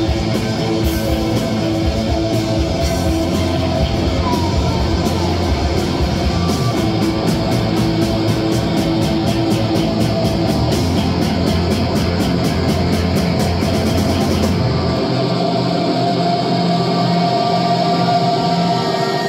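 Live rock band playing loud: electric guitar, bass guitar and drums, with fast, even cymbal strokes. About fifteen seconds in the drums and bass stop, leaving guitar notes ringing on.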